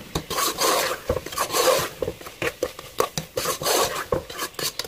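A metal spoon scraping and stirring minced chicken in a steel pot, in repeated strokes about two a second with clinks against the pot.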